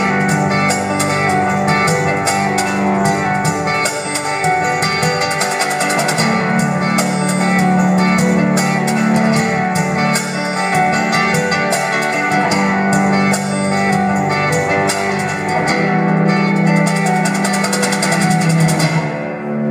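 Live acoustic band music: acoustic guitar, cello, keyboard and drums playing the closing passage of a song, with the drums' high strokes stopping just before the end.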